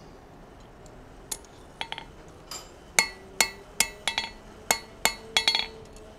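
A blacksmith's hammer lightly tapping a small forged steel staple held in tongs on the anvil face, about a dozen irregular taps starting about a second in. Each tap gives a short metallic clink with a brief ring.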